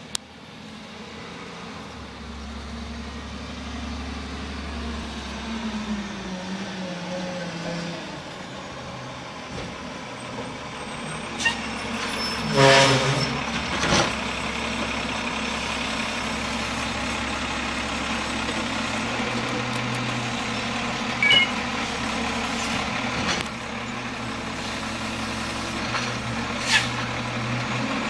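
Garbage truck's diesel engine running close by, with a loud hiss of air brakes lasting about a second roughly halfway through, and a few short sharp clanks later on.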